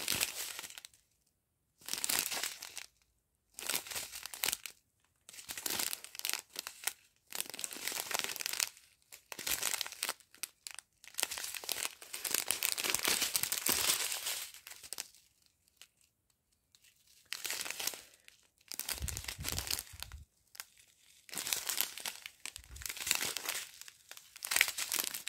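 Strip of small plastic sachets of round diamond-painting drills crinkling as it is handled, in irregular short bursts with brief pauses between.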